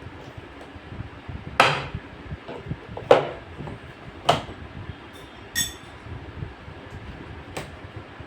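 Four sharp knocks, well spaced, with a short ringing metallic clink between the third and fourth.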